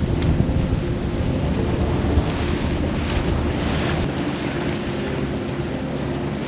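Wind buffeting the microphone over the rush of water along a yacht's hull, with the steady hum of the boat's engine underneath as it motors along with sails down. The low wind rumble eases about four seconds in.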